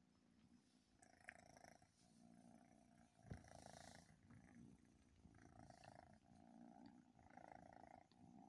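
Domestic cat purring faintly, in a steady rise and fall of about one breath a second, while being stroked. A single short knock comes about three seconds in.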